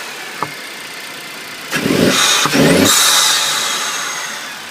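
Mercedes C250 engine breathing through a K&N aftermarket air filter, revved in two quick blips about two seconds in, then settling back as the revs fall. A short tick comes about half a second in.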